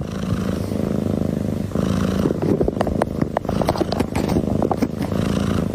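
A domestic cat purring steadily, the purr shifting in cycles of roughly a second and a half to two seconds, with a few short clicks.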